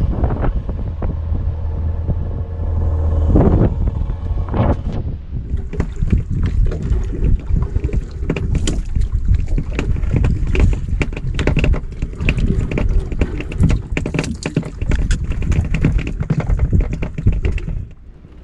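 Boat running at sea with wind buffeting the microphone: a steady low engine hum at first, then dense crackling buffeting from about five seconds in, which drops off suddenly near the end.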